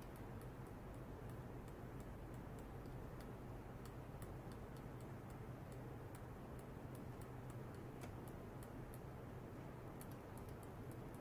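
Faint, irregular high-pitched ticking, several ticks a second, over a steady low electrical hum.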